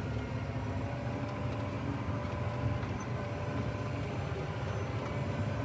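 Case IH Magnum 220 tractor's diesel engine running steadily, heard from the operator's cab: a low hum with a few faint, steady whining tones above it.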